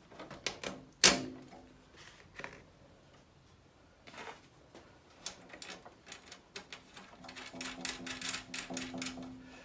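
Metal clicks and knocks from handling parts on a sheet-steel sandblasting cabinet. One loud knock about a second in sets the panel ringing briefly; near the end comes a quick run of small clicks and rattles over a low ring from the metal.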